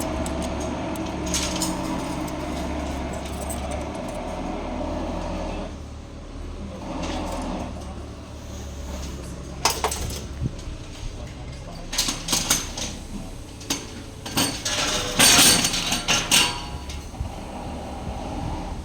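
Metal transmission parts and hand tools clinking and clanking against each other in irregular knocks, thickest about fifteen seconds in. A steady low hum runs under the first few seconds.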